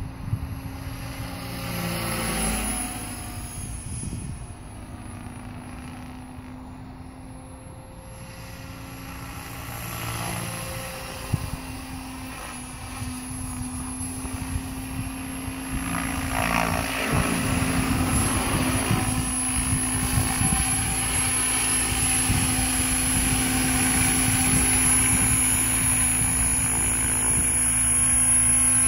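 Compass 7HV Ultimate electric RC helicopter in flight: a steady motor whine over the hum of the rotor, swelling as it sweeps past. It grows louder over the second half as it comes down close to a low hover.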